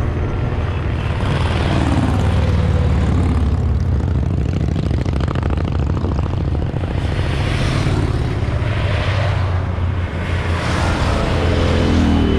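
Motorcycle engines from a passing parade: a steady low rumble of many bikes, with one motorcycle receding and dropping in pitch about a second in, and more bikes growing louder as they approach near the end.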